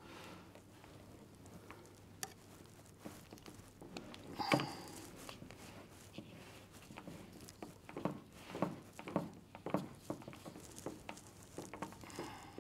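Black plastic IP67 waterproof cable connector being handled and its cable gland screwed tight on a mains cable: a sharp plastic click about four and a half seconds in, then a run of short clicks and rubbing as the parts are twisted.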